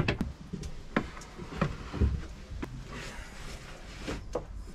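A coil of electrical cable being pulled out and fed along by hand: the plastic sheath rustling and slithering, with scattered light knocks as it drops and slaps on a wooden worktop, and one duller thump about two seconds in.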